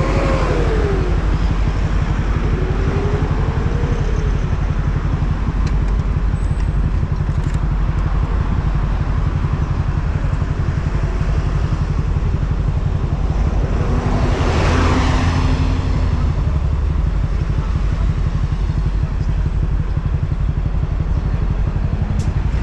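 Riding a moped on the road: heavy wind buffeting on the microphone over the running of the vehicle. A louder swell of noise comes about two-thirds of the way through.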